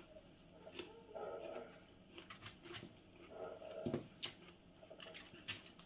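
Small pruning knife blade cutting into a pear: faint, scattered crisp slicing and scraping sounds with a few short sharp clicks.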